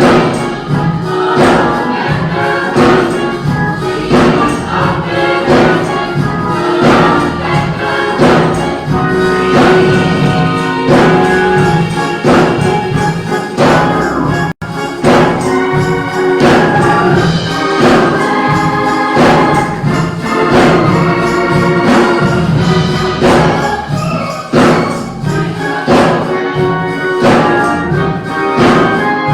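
Gospel music: a choir singing over a band with a steady beat. The sound cuts out for an instant about halfway through.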